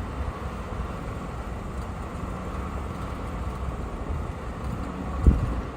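An engine running steadily with a low rumble and a faint hum, and a single thump about five seconds in.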